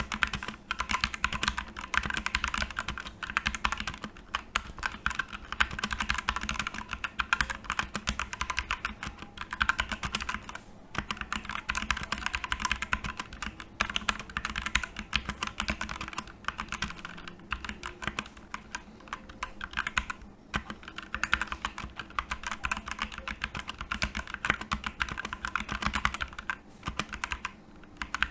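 Fast, continuous typing on a Digital Alliance Meca Air mechanical keyboard with red linear switches, a dense run of key clacks broken by a few short pauses.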